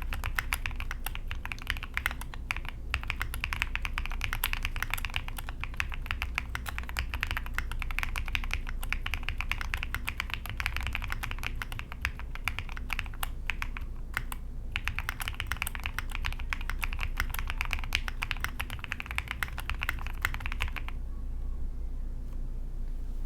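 Typing on a KBDFans OG60 60% mechanical keyboard with lubed, filmed Gateron Milky Yellow linear switches, a polycarbonate plate and SA-profile keycaps. A dense, continuous run of keystrokes with short pauses about 3 and 14 seconds in, stopping about two seconds before the end.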